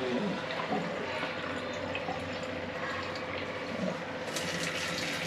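Water running in a steady stream from an Enagic SD501 Kangen water ionizer's spout into a drinking glass, with a brighter hiss joining about four seconds in.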